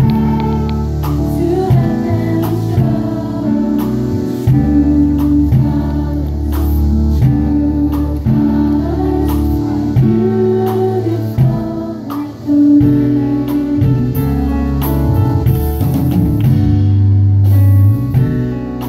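A choir of children and adults singing live with a band. Drum hits and held low bass notes run under the voices.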